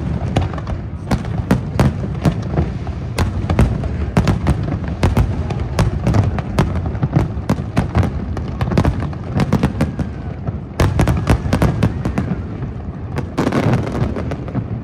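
Aerial fireworks display: a dense, continuous run of sharp bangs and crackles over a low rumble, thickest about eleven seconds in.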